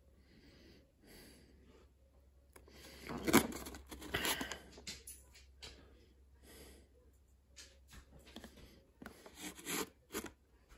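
Handling noises of a new toy truck and its packaging: scattered rustles, scrapes and clicks, loudest about three seconds in and again near the end.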